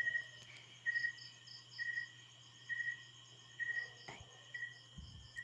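Faint background insect chirping: a short chirp repeating about once a second, with quicker, higher-pitched pulses above it, over a low steady hum.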